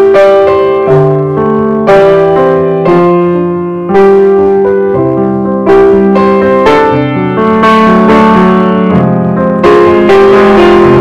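Background piano music: a slow melody over held chords, each note starting clearly and dying away, growing fuller near the end.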